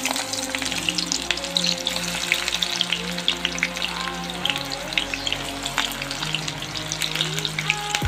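Sliced onions sizzling and crackling in hot oil in an iron kadai, a dense steady crackle of spitting oil. The onions have just gone into the oil.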